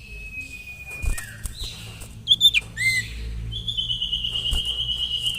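Common iora (sirtu) singing. It gives a long steady whistle, then a few short sharp notes, then a long quavering whistle held from just past the middle to the end.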